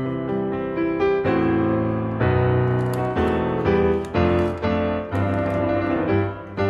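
Background piano music, with notes and chords struck about twice a second.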